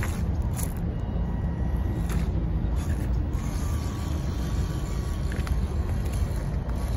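WPL C34 RC crawler driving slowly over twigs and debris: its small electric motor and gears whir, with a thin whine from about three seconds in and a few light clicks and crunches from the tyres, over a steady low rumble.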